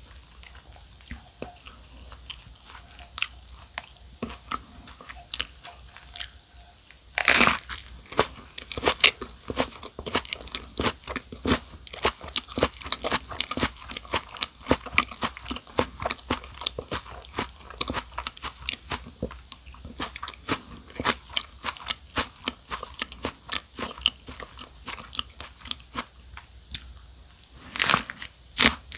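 Close-up mouth sounds of eating a club sandwich with crisp lettuce: quiet chewing at first, a loud crunching bite about a quarter of the way in, then steady crunchy chewing, and a second loud bite near the end.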